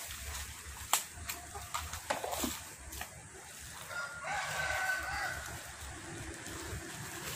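A rooster crowing once, about four seconds in, lasting a little over a second. Before it, a few sharp knocks from the old motorcycle being handled over the rubbish.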